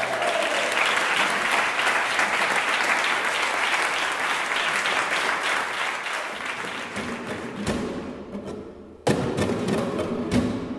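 Audience applause, a dense run of clapping that fades out over several seconds. About nine seconds in, a nylon-string flamenco guitar starts playing sharp strummed chords.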